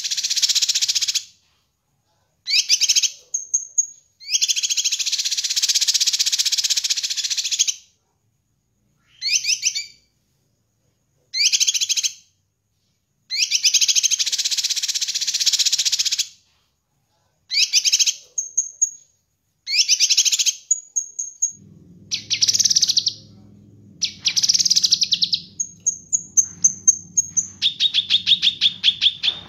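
Cucak kinoi leafbird singing in full song: long, fast chattering trills alternate with shorter phrases that end in a thin high whistle, with silent gaps between. From about two-thirds through a low steady hum runs underneath, and near the end the song turns into a quick run of repeated notes.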